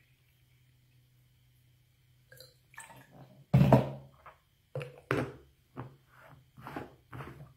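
Hard plastic handling sounds. A loud thunk about three and a half seconds in as the plastic water jug is set down on the counter, then a run of plastic clacks and clicks as the black folding bowl lid is fitted and twisted onto the plastic dog water bottle.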